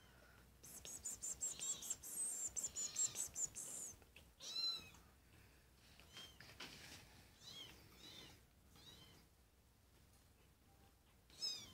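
Twenty-day-old kitten mewing with thin, high-pitched mews. A quick run of them starts about a second in, and single mews follow every half second or so.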